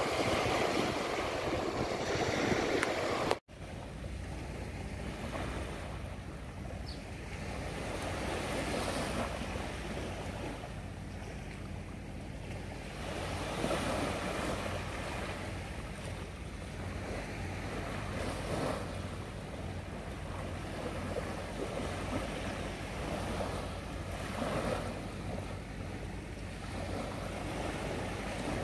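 Small waves washing onto a sandy beach, the surf swelling and falling back every few seconds, over a low steady hum. About three seconds in the sound drops out for an instant and switches to another stretch of shore.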